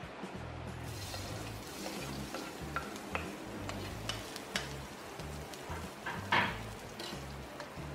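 Chopped onion sizzling in hot oil in a wok, with a metal ladle clicking and scraping against the pan as it is stirred. The sizzle starts about a second in, and the loudest moment is a sharp clack of the ladle a little past six seconds.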